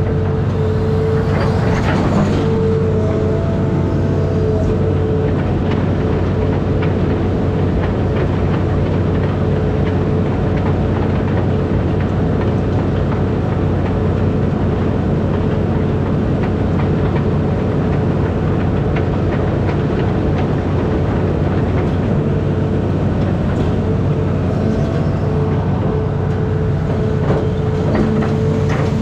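Amphibious excavator's diesel engine running steadily, a low drone with a steady higher whine over it and scattered clicks and clanks from the machine.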